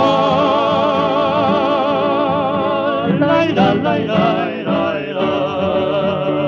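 Music from a 1933 record: a wordless sung line held on long notes with wide vibrato. There is a break about three seconds in, and then a second long held note.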